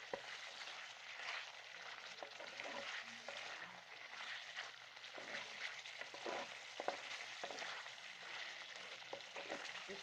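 Creamy chicken karahi frying in the pan: a steady sizzling hiss with small crackles throughout.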